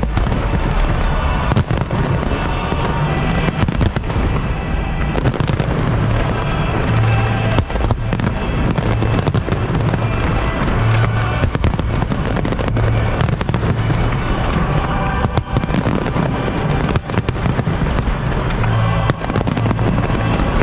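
Dense fireworks barrage: many aerial shells bursting in quick succession, with sharp bangs throughout over the display's music soundtrack.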